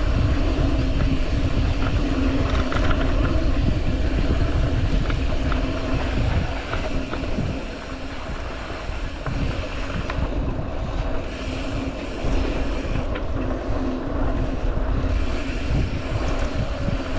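Wind buffeting the microphone with a heavy low rumble and a steady hum underneath; it eases for a couple of seconds about halfway through.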